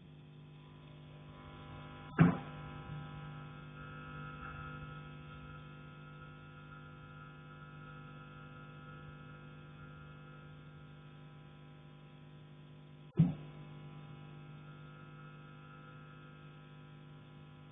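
Two loud, sharp knocks on a heating pipe, coming from the attic, about eleven seconds apart, each ringing briefly along the metal, over a steady low hum.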